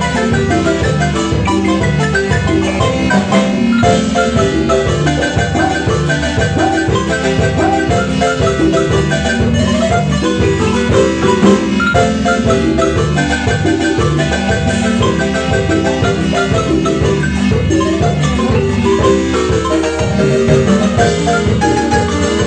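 Marimba music: many quick struck notes in a lively, steady rhythm over low bass notes.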